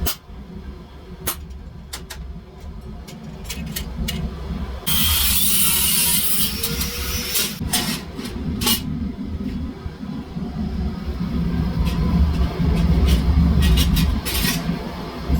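Forge workshop sounds: a steady low mechanical rumble under scattered, irregular sharp metal clinks and knocks. A loud hiss comes in about five seconds in and lasts about two and a half seconds.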